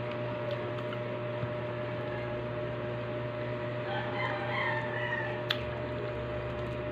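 A rooster crowing once, about four seconds in, over a steady low hum; a single sharp click follows just after the crow.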